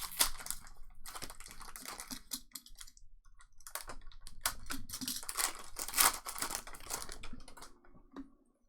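Trading cards being handled and flipped through quickly by hand, a dense run of clicks and rustles with some crinkling of pack wrappers. It comes in two spells with a short pause about three seconds in.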